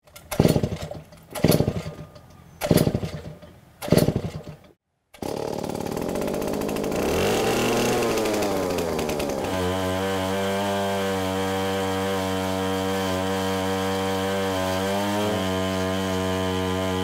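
Four sharp, ringing hits about 1.3 seconds apart, then a Stihl 090 two-stroke chainsaw on a chainsaw mill revs up and down and settles into a steady high-speed run, dipping briefly near the end.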